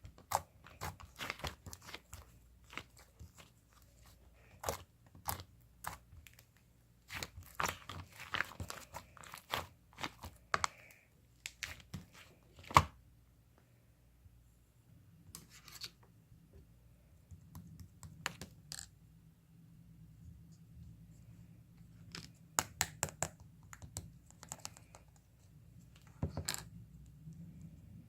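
Irregular close-up crackling, crunching and tearing sounds in clusters of sharp clicks, with one loud sharp snap about 13 seconds in and quieter gaps between.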